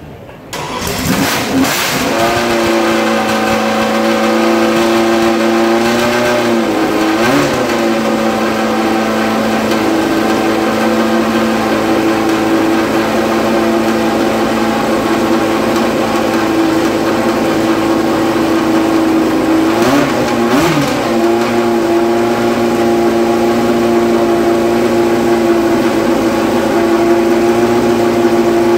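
Williams FW04's Ford Cosworth DFV V8 racing engine catching about a second in and settling into a steady idle. The throttle is blipped briefly twice, about a quarter and about two-thirds of the way through.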